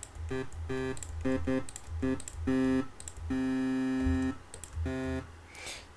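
FL Studio 3x Osc software synthesizer sounding a series of short synth notes at the same pitch, about eight of them, one held for about a second near the middle, while its oscillator settings are being tweaked for a dubstep wobble bass. Clicks of computer keys fall between the notes.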